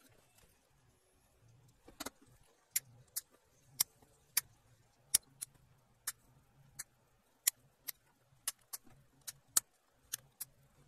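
Flush cutters snipping component leads on the solder side of a circuit board: about eighteen sharp, separate snips at roughly one to two a second, beginning about two seconds in.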